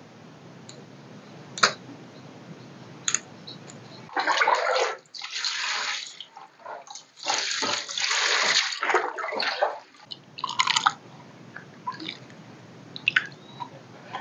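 A stream of water splashing over chayote shoot leaves in a wicker basket as they are rinsed by hand, in uneven bursts from about four seconds in to about eleven seconds. A few light clicks come before and after the splashing.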